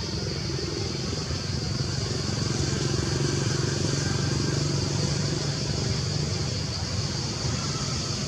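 A motor vehicle's engine droning, swelling for a few seconds in the middle and easing off again, over a steady high-pitched hiss.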